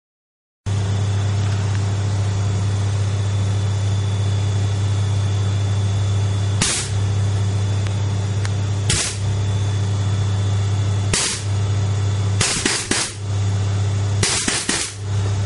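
Homemade 20-bar compressed-air valve system releasing short sharp bursts of air over a steady loud low hum: single bursts about two seconds apart, then two quick clusters of several bursts near the end.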